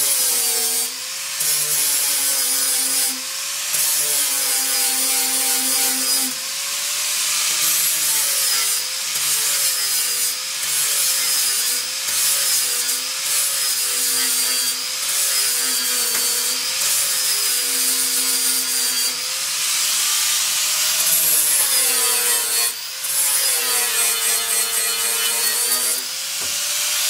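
Angle grinder dressing down weld tacks and welds on a steel floor panel, its motor whine sagging in pitch as the disc is pressed into the metal and picking up again when eased off, over and over.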